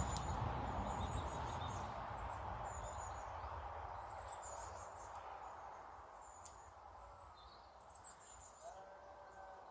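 Small birds giving short, high, thin chirps again and again, over a broad noise that fades away over the first several seconds.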